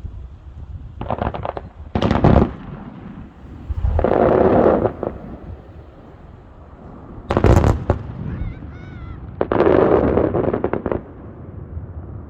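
Aerial fireworks going off: several sharp bangs, with two longer rushing crackles between them.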